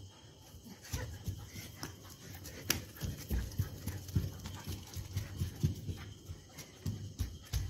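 Irregular quick footfalls and scuffs on a concrete floor, with a few sharp clicks, as a golden retriever puppy runs and plays.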